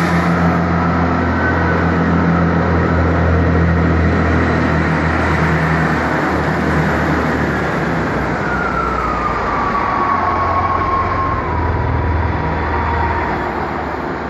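Chiltern Railways diesel multiple unit running slowly past along the platform: a steady diesel engine drone with rail rumble. In the second half a whine glides down in pitch, and the sound eases off near the end.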